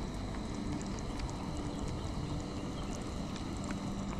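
Camping stove burning on high under a pot of noodles at a rolling boil: a steady rushing burner flame with bubbling water and a few faint ticks.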